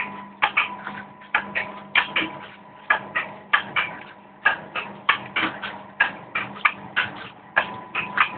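Automatic vertical sachet packing machine for ground pepper running, with rhythmic mechanical clacking, about two knocks a second in uneven pairs, over a steady motor hum.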